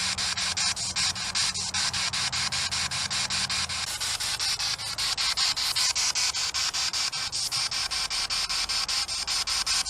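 Spirit box, a radio scanning rapidly through stations, sweeping: a hiss of static chopped by regular clicks several times a second as it jumps from station to station. A low hum runs under it for the first four seconds.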